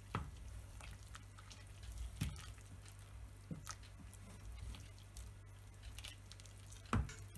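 Wooden spoon stirring a stainless steel pot of cooked noodles and shrimp: soft wet squishing, with a few knocks of the spoon against the pot, the loudest near the end. A faint low hum runs beneath.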